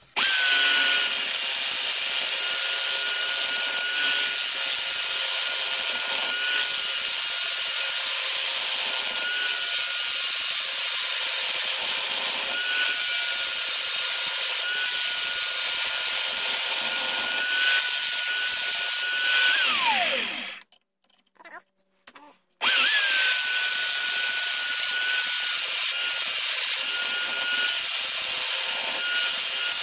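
Homemade mini lathe driven by an electric drill, running with a steady high motor whine while a hand chisel scrapes the spinning horn blank during rough shaping. About two-thirds of the way through the motor winds down with a falling whine, stops for about two seconds, starts again, and winds down once more at the end.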